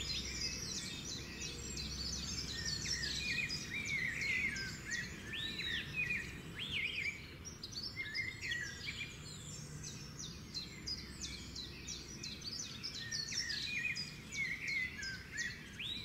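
Birds chirping and singing: a dense run of quick high chirps, with a few arching whistled notes rising and falling now and then.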